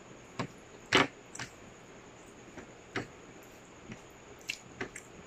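Eating kare-kare and crispy tutong (scorched rice crust) by hand: a scattered series of short, sharp clicks and crackles from chewing and from fingers working the food on the plate, the loudest about a second in.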